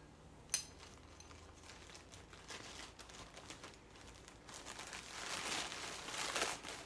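A mailed package being opened by hand: packaging crinkling and rustling, with one sharp click about half a second in and louder rustling in the last couple of seconds.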